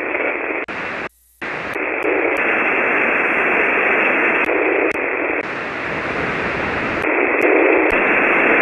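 Amateur radio receiver hiss on the 40-metre band in single-sideband mode: a steady rush of band noise limited to a narrow audio range, with no station coming through. The noise cuts out for a moment about a second in and shifts in level a few times.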